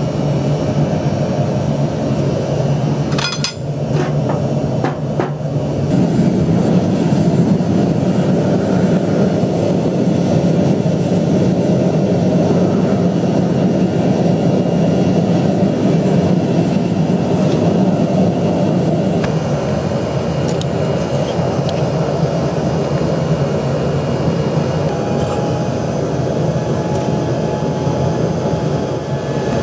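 Steady loud mechanical roar, with a few sharp knocks about three to five seconds in.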